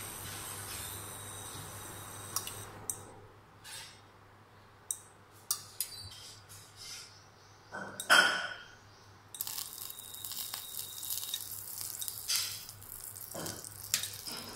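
Mustard seeds in hot oil in a steel kadai: a brief clatter about eight seconds in as they go into the pan, then a steady hiss with small crackles as they sizzle.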